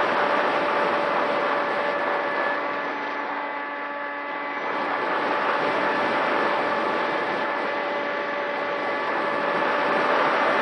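Electric motor and propeller of a radio-controlled aircraft heard from its onboard camera, a steady buzzing whine with several tones over rushing air. The throttle eases off about three seconds in and comes back up about five seconds in.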